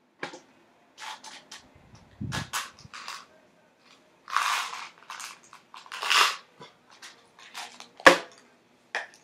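Irregular clicks, crunching and short rustling noises close to the microphone, with a low thump about two seconds in and a sharp click about eight seconds in.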